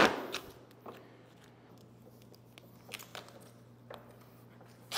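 Faint, scattered taps and rustles as a PVC pipe frame and a roll of duct tape are handled, over a steady low hum.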